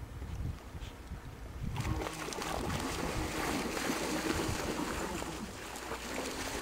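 A radio-controlled power boat's small motor whining and changing pitch as the boat runs on the water, with water splashing. It all gets much louder about two seconds in.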